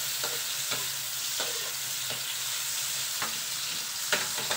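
Onion, tomato, garlic and ginger sizzling in hot oil in a pan, with a steady hiss. A spatula stirs the mix, scraping and clicking against the pan about every half second to a second, with a louder pair of clicks near the end.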